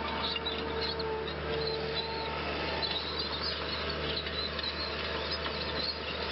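Small birds chirping, many short high calls scattered throughout, over a steady low hum.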